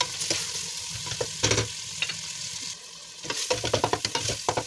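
Ground beef and diced onion frying in oil and butter in a stainless steel pot, sizzling over medium heat while a wooden spoon stirs and scrapes through the partly frozen mince, with scattered taps of the spoon against the pot. The sizzle drops briefly a little before the middle and comes back.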